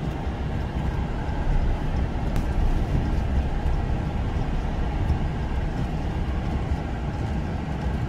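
Steady low rumble of a Ram pickup truck driving on a snow-covered road, heard inside the cab: engine and tyre noise.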